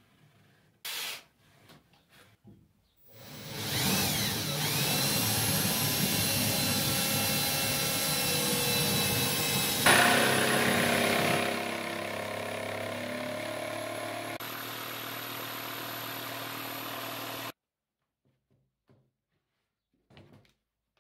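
Electric drill spinning up and boring a pilot hole through the 3/4-inch MDF top of a subwoofer box, the starting hole for a jigsaw blade. The motor whine rises as it starts, the sound changes abruptly about halfway through as the bit bites, then runs lower and cuts off suddenly.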